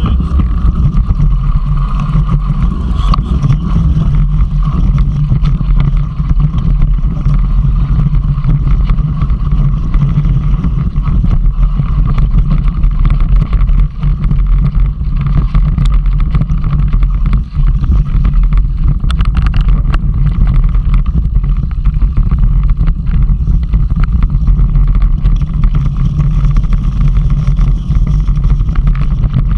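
Mountain bike riding over a rough, rocky track, heard through the ride-mounted camera: a loud, steady rumble of wind and tyre noise on the microphone, with constant small clicks and rattles from the stones and the bike.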